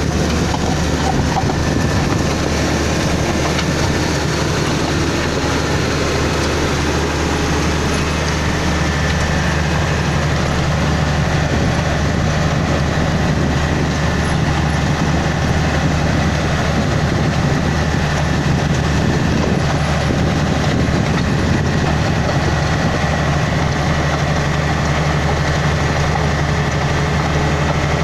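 Komatsu GD555 motor grader's diesel engine running steadily at a constant pitch while the grader works aggregate, with a faint high whine above it from about a third of the way in.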